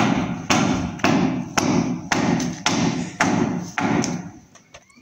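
Footsteps climbing tiled stairs: a steady series of heavy thuds, about two steps a second, that fade out about four and a half seconds in.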